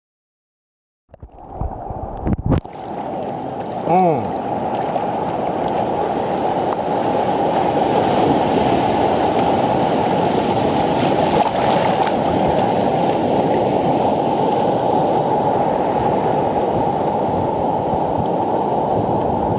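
Steady, muffled rush of surf and wind noise on the microphone during a surf session, starting about a second in, with a few clicks and a brief squeak around four seconds.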